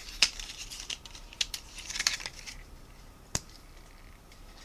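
Hands handling lipstick packaging, with cardboard and wrapping rustling and crinkling and several sharp clicks. The sharpest click comes about three and a half seconds in.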